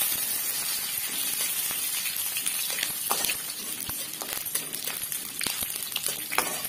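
Green chillies and curry leaves sizzling in hot oil with mustard seeds in an aluminium kadai, with a metal spatula scraping and clicking against the pan as they are stirred.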